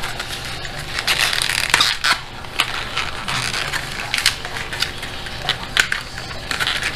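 Hard plastic blister pack being handled and opened: irregular crackles and sharp clicks.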